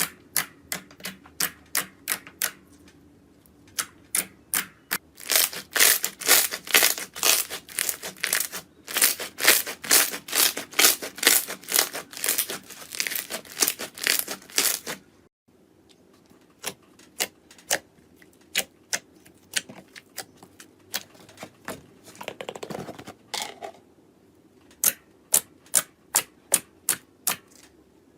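Slime being pressed and poked, giving sharp clicking pops in quick series, densest for the first half; after a brief break the pops come more sparsely, with a short squishy rustle before regular popping resumes.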